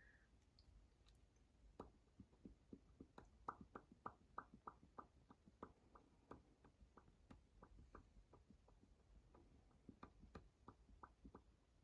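Light tapping on travel-size cosmetic containers: quick, crisp taps at about three a second, starting about two seconds in.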